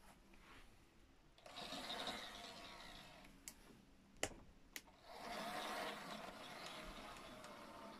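Small electric motor and wheels of an OO gauge model Class 06 diesel shunter whirring as it runs along the track with its wagons. The whirr comes in two spells, with a few sharp clicks between them.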